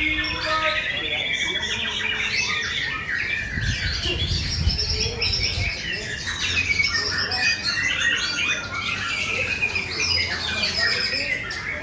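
White-rumped shama (murai batu) singing a fast, varied song of overlapping whistled and chattering phrases, with other birds singing at the same time. A brief low rumble comes about four seconds in.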